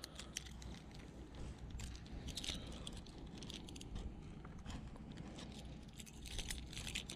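Faint handling sounds as a hard plastic lure and its hooks are worked out of a bass's mouth: scattered small clicks and scrapes over a low steady rumble.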